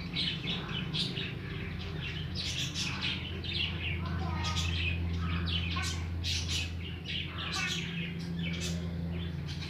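Small birds chirping again and again in quick, irregular calls, over a steady low hum.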